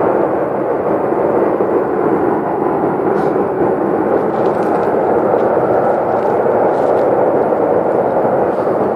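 Loud, steady rumbling that seems to come from the sky and does not let up. Its source is unknown; the husband took it for a train or a plane.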